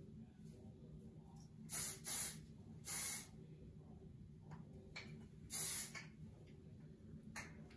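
Sexy Hair Spray & Play Harder aerosol hairspray sprayed onto the hair in about five short hissing bursts, spaced unevenly, two of them close together.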